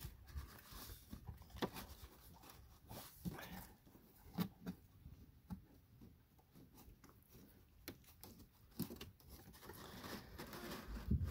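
Faint scattered rustles, scrapes and clicks of a pleated paper cabin air filter being pushed and straightened into its plastic housing by hand.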